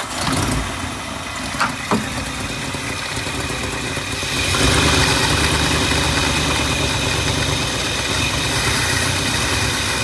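1959 Lincoln's 430 V8 catching and running on brake cleaner fed into the carburettor, because its weak fuel pump is not delivering fuel. There are two sharp pops a little under two seconds in, and the engine runs louder from about four and a half seconds in.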